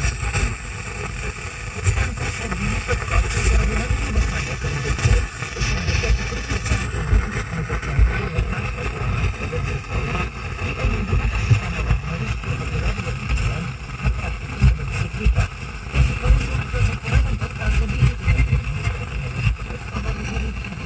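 Car stereo tuned to a distant FM station on 89.5 MHz, the weak signal coming through as a steady hiss of static with faint programme audio underneath.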